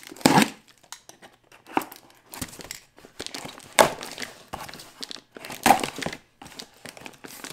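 A package being opened by hand: packaging crinkling and tearing in irregular rustles, with a few louder crackles.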